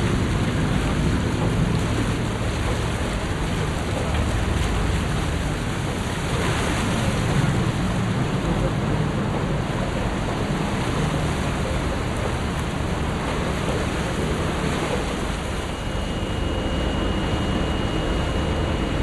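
Steady rumble and rushing noise of a river boat underway: engine drone with water and wind noise. A faint high whine joins near the end.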